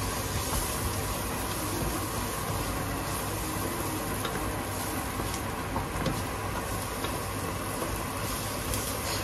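Curry masala sizzling steadily as it fries in oil in a pan, with a steady low hum underneath and a few faint clicks.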